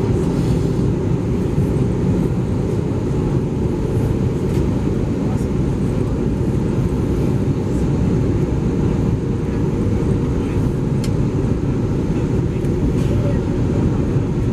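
Steady cabin noise inside an Airbus A320 in flight: a loud, even rush of airflow and engine rumble, heaviest in the low end, with a faint steady hum above it.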